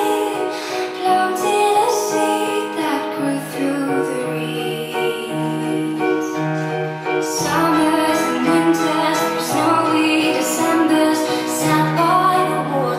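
Music with a woman singing.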